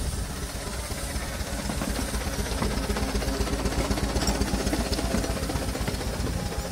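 Miniature steam traction engine running close by: a rapid low beat of exhaust chuffs over a rumble, with steam hissing, getting a little louder about two seconds in.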